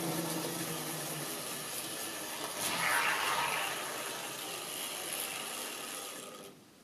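Model railway locomotive, a kit-built white-metal LNER F2 tank engine, running with two coaches: a motor hum and the rattle of wheels on the track. It grows louder about three seconds in as the train draws nearer, then stops shortly before the end.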